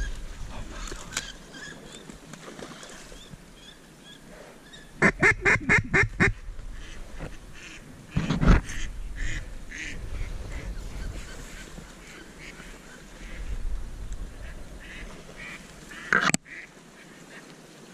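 A flock of mallards quacking. About five seconds in, one duck gives a run of six or seven loud quacks in quick succession, and there is a sharp click near the end.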